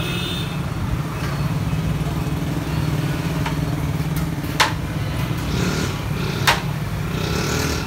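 Steady low engine hum of street traffic, with two sharp clacks about two seconds apart and faint voices.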